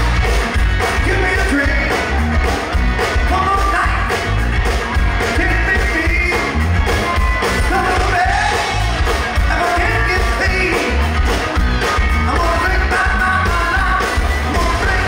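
Rock song with a male-range singing voice over a steady drum beat and heavy bass.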